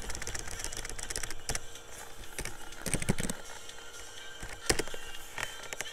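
Computer mouse clicks and keyboard keystrokes: a few sharp separate clicks, with a quick cluster of several about halfway through.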